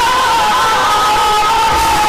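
Music with held high notes, as a crowd cheers and shouts over it.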